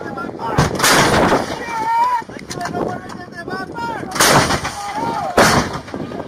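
Towed howitzer firing: three heavy booms, about a second in, about four seconds in, and again just over a second later, each followed by a rolling echo.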